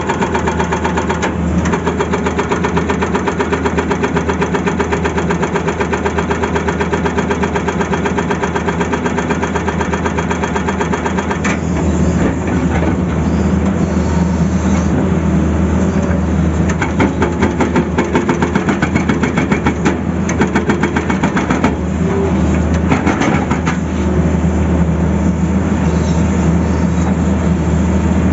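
Tata Hitachi excavator's diesel engine running steadily with a fast even pulse; about twelve seconds in its note shifts and it gets a little louder, as under more load.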